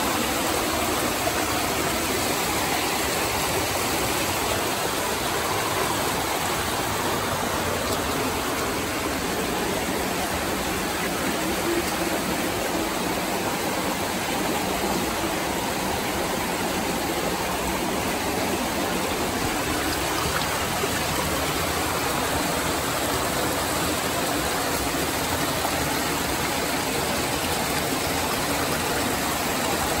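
Steady rush of a stream tumbling over boulders in a narrow rock gorge.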